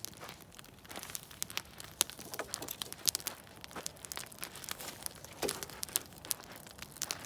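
Campfire crackling, with frequent irregular sharp pops and snaps over a faint hiss; a couple of louder snaps come about two and three seconds in.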